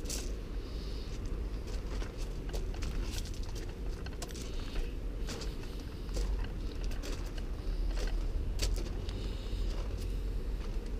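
Footsteps crunching on a gravel path, with scattered sharp clicks over a steady low rumble.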